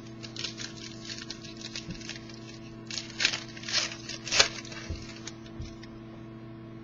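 Hockey trading cards being handled and slid against one another: a run of short papery flicks and rustles, loudest about three to four seconds in, over a steady electrical hum.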